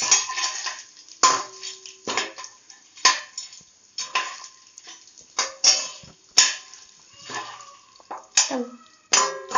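Steel spoon scraping and clinking against a stainless steel pan while stirring unpopped popcorn kernels in oil, about one stroke a second, with a brief metallic ring after several strokes.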